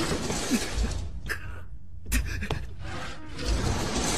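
A heavy desk dragged scraping across the floor and shoved against a door, in two rough pushes with a short pause between.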